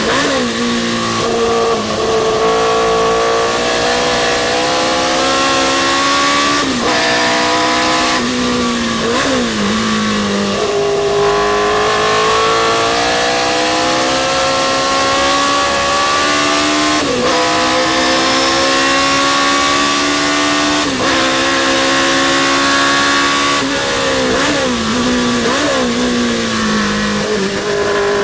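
A historic sports racing car's engine running hard on track. Its pitch climbs through each gear and drops sharply at every change, about a dozen times, with a few quick dips and climbs where it is blipped through downshifts.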